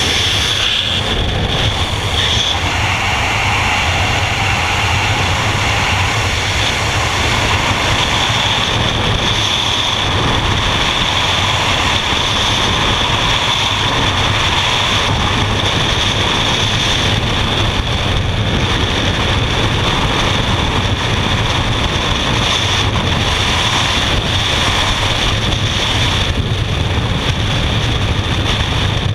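Freefall wind rushing over the camera's microphone at skydiving speed: a loud, steady rush.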